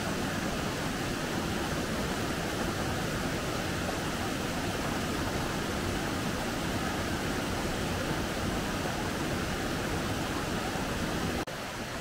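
River water rushing over rocks and small rapids, a steady rush. Near the end it cuts abruptly to a slightly quieter, thinner rush of water.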